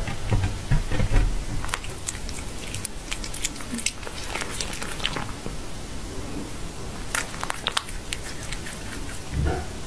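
A cat licking and chewing small pieces of raw beef: irregular sharp smacking clicks that come in two runs.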